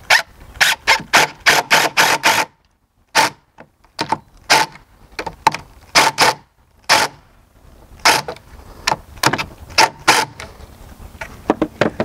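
Cordless DeWalt driver run in many short trigger bursts, driving screws into a metal railing bracket at the foot of the post. The bursts come fast in the first couple of seconds, then more spaced out, and stop near the end.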